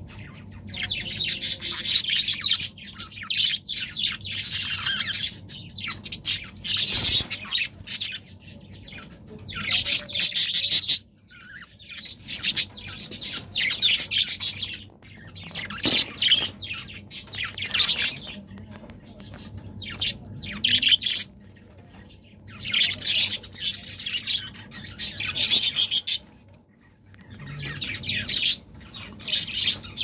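Budgerigars chattering and warbling: repeated bouts of fast, scratchy chirps with a few brief pauses.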